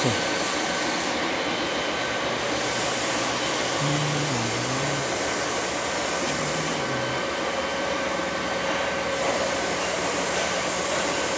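Steady machine hum and whir from a running electric motor, with a faint constant whine. A low wavering tone comes in briefly twice in the middle.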